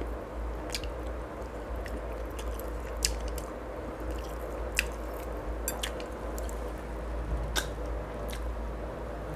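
Close-up eating sounds of someone gnawing and sucking the meat off a braised pork hock bone (paksiw na pata): soft chewing with a few scattered wet smacks and mouth clicks, over a steady background hum.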